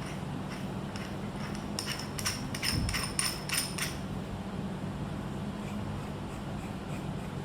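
Quick series of light clinks and taps, with bright ringing like metal or glass, and one dull thump in the middle, from parts of a manual perfume bottle crimping machine being handled and adjusted. A steady low hum runs underneath.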